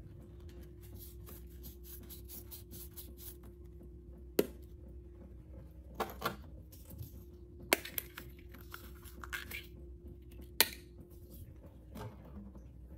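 Hands handling small hard objects on a board: several sharp knocks and taps as items are picked up and put down, with stretches of light rustling between, over a steady low hum.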